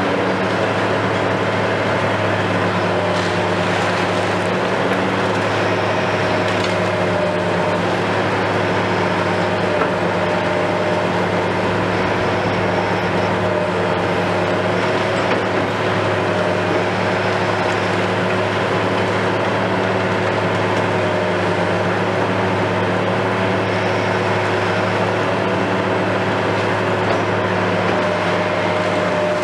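Hitachi KMC 520 BTV long-reach demolition excavator running steadily at work: a constant diesel drone with a steady whine on top.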